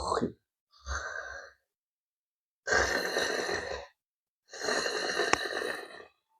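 A person's heavy, noisy breaths during gurah herbal nasal cleansing: three long, forceful exhalations, each about a second long, with pauses between.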